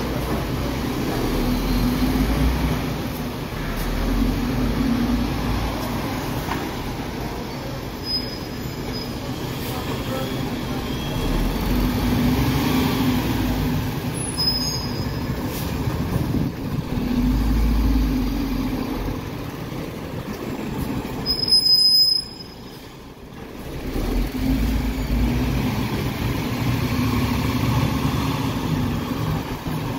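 MAN TGS 26.320 garbage truck's Euro 5 six-cylinder diesel engine running as the truck manoeuvres, its low rumble swelling and easing every few seconds. The sound briefly drops away about three-quarters of the way in.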